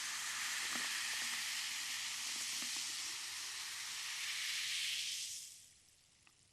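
Food frying in a pan: a steady sizzle with a few small pops, fading away about five seconds in.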